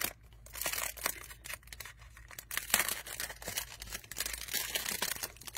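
Clear plastic shrink wrap being torn and peeled off a boxed card deck by hand, with irregular crinkling and crackling.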